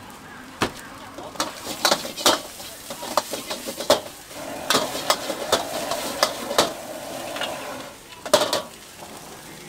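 Metal ladle clanking and scraping against a wok as fried rice is stir-fried over a gas flame, with frying sizzle beneath. The strikes come irregularly, about a dozen, with a loud cluster near the end.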